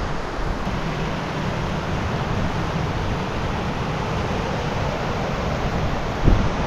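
Wind blowing across the microphone, a steady rushing noise, with a short knock near the end.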